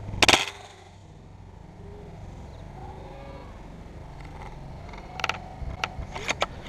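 A single sharp shot from a spring-powered WELL L96 airsoft sniper rifle right at the start, then a quiet outdoor background, with several short sharp clicks near the end.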